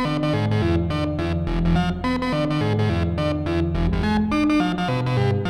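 Analog modular synthesizer playing a sequenced melody of short, plucky notes that steps through changing pitches. Selected steps are ratcheted, retriggered as quick bursts of repeated notes by a fast clock oscillator.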